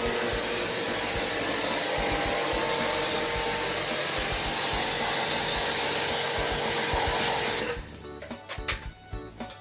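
A loud, steady whirring noise from a running electric machine with a faint hum in it, like a blower or vacuum motor. It cuts off suddenly near the end, where background music takes over.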